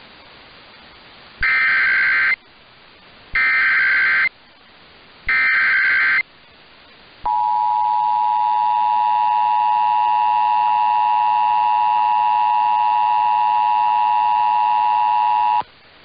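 Emergency Alert System signal received over AM radio: three roughly one-second bursts of SAME digital header data, then the EAS attention signal, two steady tones sounding together, held for about eight seconds. These tones announce that an emergency alert, here a flash flood warning, is about to be read.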